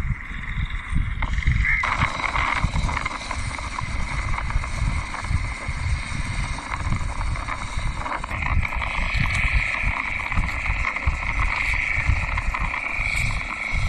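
Wind buffeting the microphone at the waterside: a gusty low rumble throughout. A steady high whine joins about eight seconds in.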